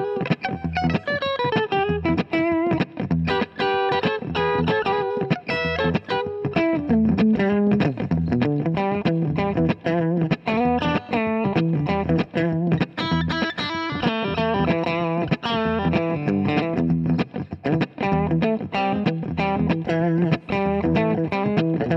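1967 Gretsch 6120 Nashville hollow-body electric guitar with Filtertron pickups, played through an amplifier: a continuous run of picked notes over a steadily repeated low bass note.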